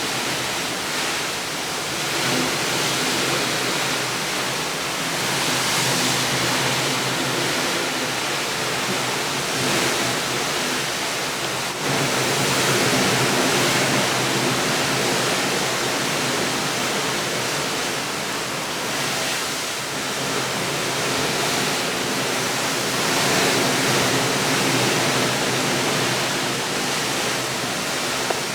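Steady rushing noise that swells and eases gently, with one brief click about twelve seconds in.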